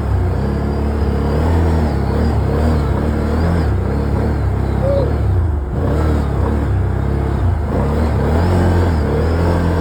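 Vehicle engine running under load through deep snow, its pitch rising and falling as it is revved, with a brief dip about halfway through.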